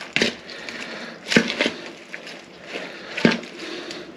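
Salad being stirred in a bowl: rustling with four sharp knocks of the utensils against the bowl.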